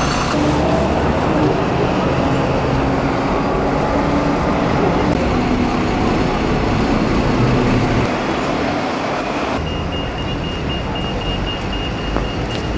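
City street traffic: cars and buses running past, with a steady engine hum through the first half. From about ten seconds in, a rapid, high-pitched electronic beeping repeats over the traffic.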